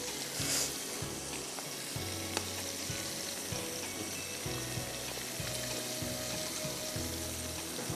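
Hot oil sizzling steadily around batter-coated chicken pieces frying in a large pan, with a few light clinks as a steel ladle dips in to scoop out oil.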